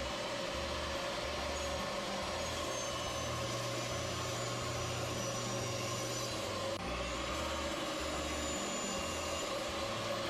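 A woodworking power machine running steadily: a loud, even whir with a strong hum in it, dipping briefly about seven seconds in.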